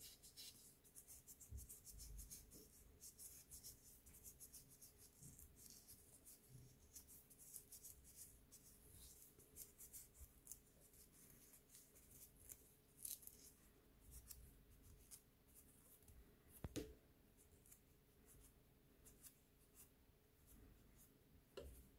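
Faint, repeated rubbing and scratching of a lint-free wipe, wet with nail degreaser, being rubbed over the fingernails, with one sharp click about three quarters of the way through.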